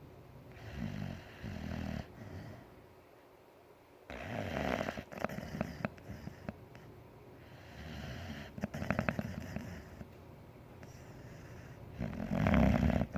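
White boxer dog snoring in its sleep: a series of snoring breaths a few seconds apart, some with a rapid fluttering rattle, the loudest near the end.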